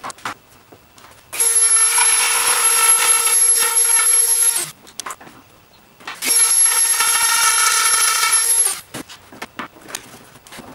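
A Dremel rotary tool grinding at a hole in a plastic mower console, running twice with a steady high whine, for about three seconds and then about two and a half. Between and after the runs come light scrapes and clicks of the plastic being handled.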